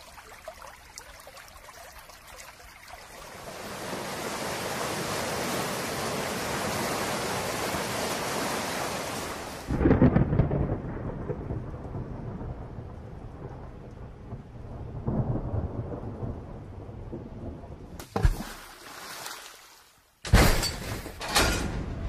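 Thunderstorm sound effect: a steady hiss of heavy rain, then loud rumbling thunder from about ten seconds in. A sharp crack comes near the end, followed by a burst of sharp clattering crashes.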